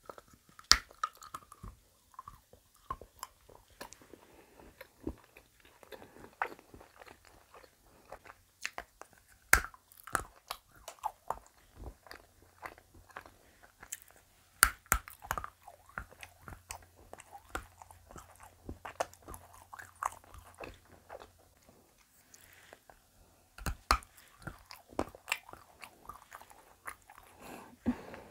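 Close-miked biting and chewing of a Lindt white chocolate bunny: irregular sharp snaps and clicks as the chocolate is bitten and chewed.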